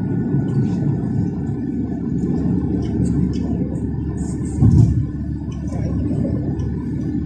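Steady low road and engine rumble heard inside a moving car's cabin at highway speed, with one brief louder low thump about two-thirds of the way through.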